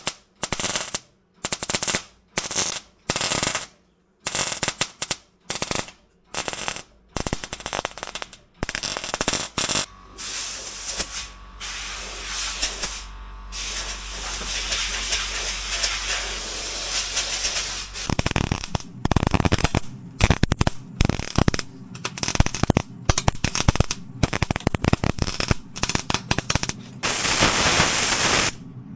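Electric welding arc crackling and hissing in short stop-start bursts of about a second each as holes in the car's steel body shell are welded shut. About ten seconds in comes a longer, steadier run of hiss lasting several seconds, then denser crackling bursts.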